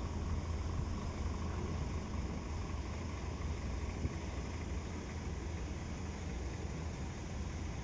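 Steady low rumble with an even hiss from the working harbour: the engines of a departing container ship and its tug.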